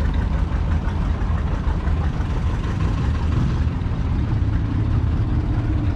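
An engine idling steadily, its low note growing a little stronger about halfway through.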